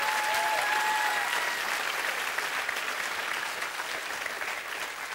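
Studio audience applauding, the clapping slowly dying away.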